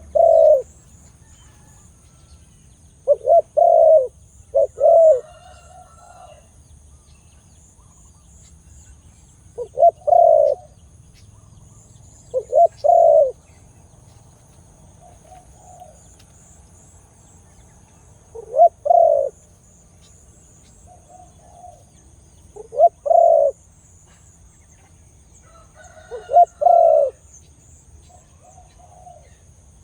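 A dove cooing: short, loud, deep coos repeated every few seconds, some in quick pairs, with softer coos in between.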